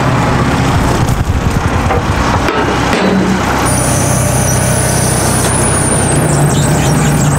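Telehandler's diesel engine running steadily while its forks are eased into a man basket. About halfway through, a high thin whine joins the engine noise.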